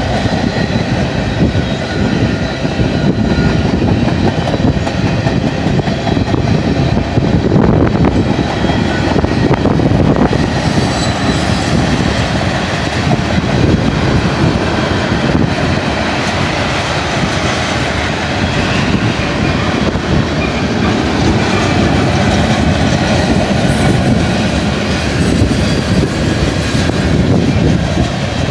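Freight cars of a BNSF manifest train rolling past close by: a loud, steady rumble and clatter of steel wheels on rail as tank cars and then refrigerated boxcars go by.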